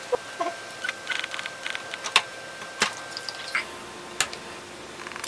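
Hands handling the plastic and metal parts of a disassembled LED TV: a string of short clicks, taps and light rattles, with the sharpest click about two seconds in.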